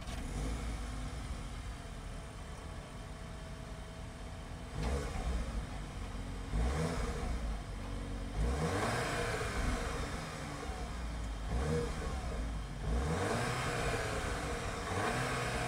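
Cupra Formentor VZ's 310 PS 2.0-litre turbo petrol engine, heard through its four-pipe exhaust, idling steadily and then blipped about five times from about five seconds in, the pitch rising and falling with each rev.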